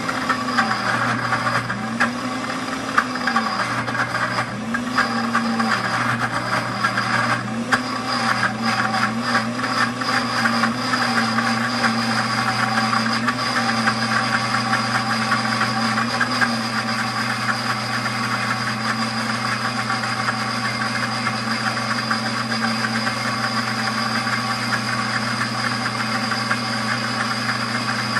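Pampered Chef Deluxe Cooking Blender's motor running on its grind setting, its blades churning honey-roasted peanuts into peanut butter. For the first fifteen seconds or so the motor's pitch swells and dips every second or two with some rattling, then it holds steady.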